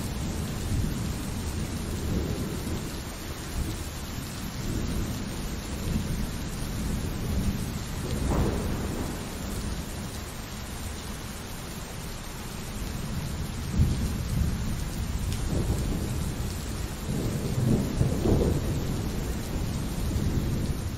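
Steady pouring rain with rolling thunder. The rumbles swell about eight seconds in and again near the end, with a short sharp crack a little past the middle.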